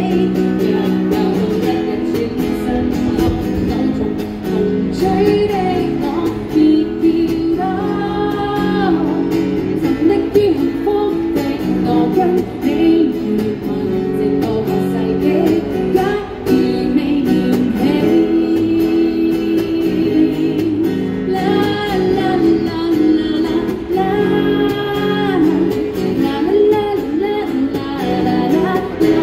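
A woman singing a song through a microphone and small amplifier while strumming an acoustic guitar.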